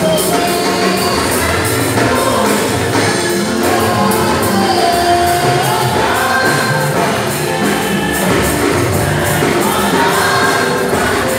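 Live gospel worship music: a lead singer on a microphone and the congregation singing together over a band with a steady percussion beat.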